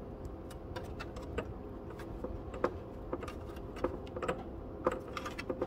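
Scattered small clicks and taps, about a dozen, as a black rubber crankcase vent hose is worked by hand and pushed onto the fitting of a billet oil catch can.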